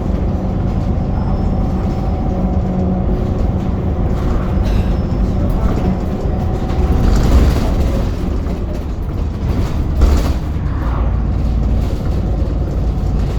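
VDL Pulsar single-deck bus on the move: engine and drivetrain running with a steady whine from the rear differential, the weird diff sound. Two short louder jolts come about 7 and 10 seconds in.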